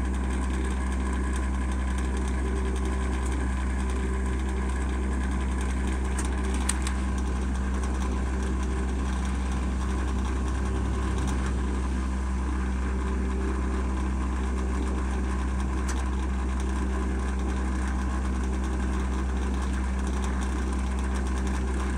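Steady low electrical hum from a DBT DC rapid charger while it initialises a charge session, with a single faint click about six and a half seconds in.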